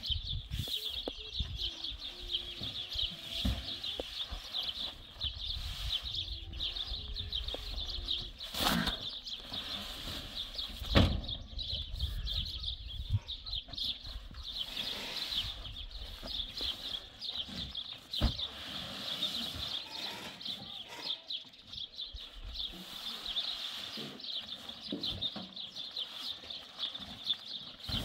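Full paper cement sacks being handled and set down, giving dull thuds now and then, the loudest near the middle. A steady high chirping runs underneath throughout.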